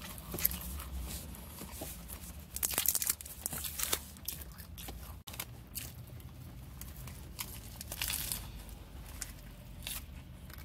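Close crinkling and tearing of food wrapping in a few loud crackly bursts, along with crisp lettuce being bitten and chewed.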